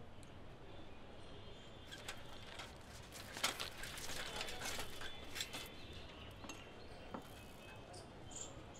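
Low background ambience with scattered light clinks and clicks, busiest in the middle, some with a short metallic ring.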